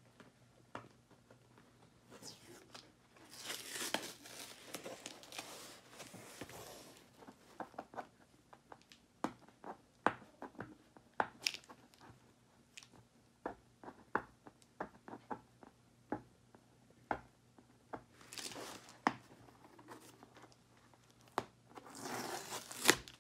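A cardboard box being opened by hand: fingernails scratching and clicking at the packing tape, with longer ripping tears as tape and cardboard are pulled apart, first a few seconds in, then about eighteen seconds in and again near the end.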